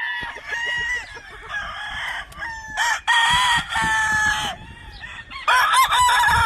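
Game fowl roosters crowing, several long crows one after another and overlapping, with some clucking; the loudest crowing comes near the end.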